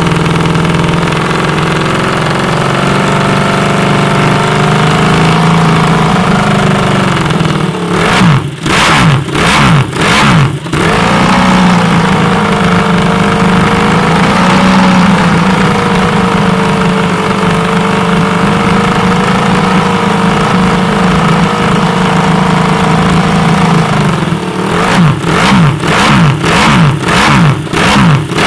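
Ducati Desmosedici GP5 990cc MotoGP V4 engine running loud at a high idle. There is a quick burst of sharp throttle blips about eight seconds in, and a rapid run of repeated blips in the last few seconds.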